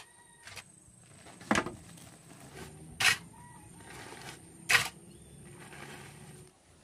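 A long-handled hoe scraping and scooping loose soil off a packed earth floor: three sharp scrapes about a second and a half apart, with lighter scuffs between, as the soil is shovelled into a plastic feed sack.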